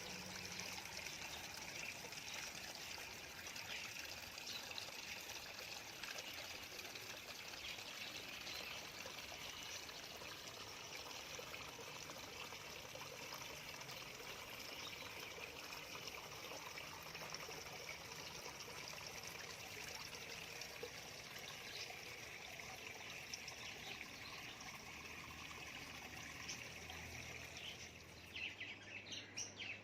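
Small DIY garden waterfall: water trickling and splashing steadily, faint.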